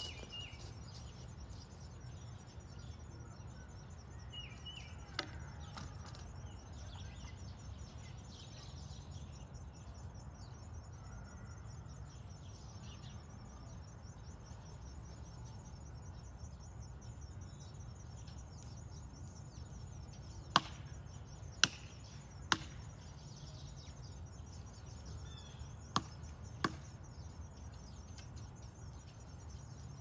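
Steady low outdoor background rumble with a short bird chirp about five seconds in. About two-thirds through come five sharp knocks in two groups, three about a second apart and then two close together.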